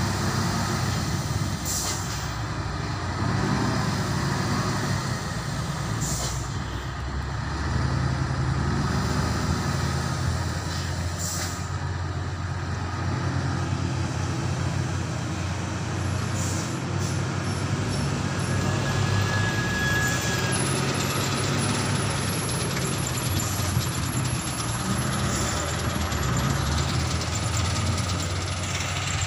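Heavy Mitsubishi Fuso truck's diesel engine running heavily loaded on a steep climb, its drone rising and falling, with short air-brake hisses about every five seconds.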